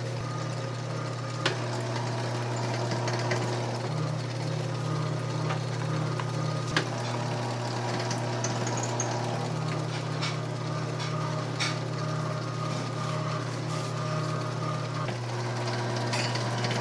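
Electric pasta sheeting machine running, its motor and rollers giving a steady low hum as dough sheets pass through. Two short clicks stand out, one early and one about halfway.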